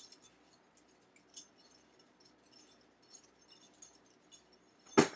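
Butterfly knife (balisong) being flipped and spun by hand, its handles and blade giving many small light clicks and clinks. Near the end a single loud clack, as the knife is dropped.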